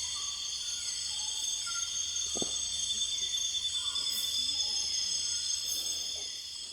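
Rainforest insect chorus: crickets and other insects trilling steadily at several high pitches, with short lower chirps repeating through it. There is one soft click about two and a half seconds in.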